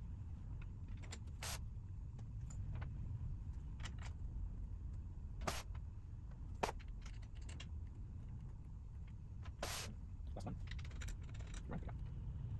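Scattered light clicks and taps of small screws, nuts and the metal tube frame of a DJI Agras T40 battery cooler being handled as screws are fitted by hand. A few sharper clicks come in the middle and one just under ten seconds in, with a run of lighter ones near the end, all over a steady low hum.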